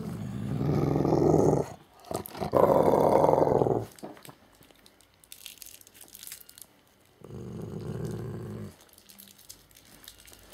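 Labrador growling low in three long, rough rumbles: two close together at the start and one more about seven seconds in.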